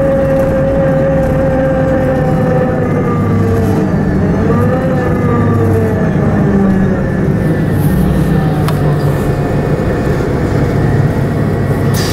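City bus heard from inside while driving, its engine and drivetrain running steadily with a whine that slowly falls in pitch and briefly rises and falls again about five seconds in.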